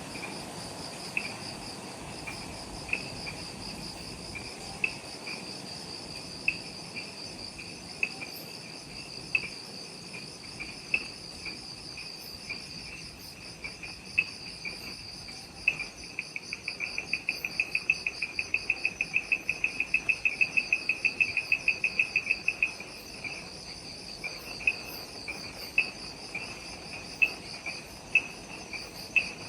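Forest insect chorus at twilight: a steady, pulsing high trill, with a louder chirp repeating about once a second. In the middle the chirps speed up into a rapid, louder run for several seconds, then slow back to single chirps.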